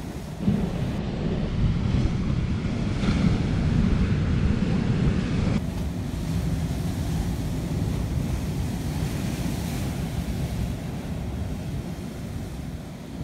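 Sea surf breaking and washing steadily, with wind noise on the microphone.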